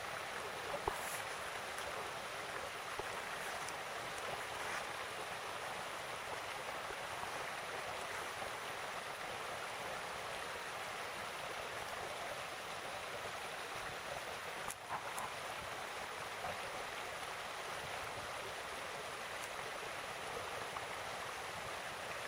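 Mountain stream running steadily, an even rush of water.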